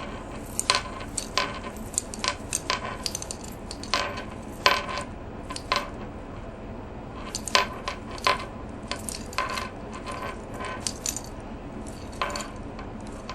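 Irregular light clicks and clinks of beads and wire being handled as wire is wrapped by hand to attach a beaded clasp to a necklace.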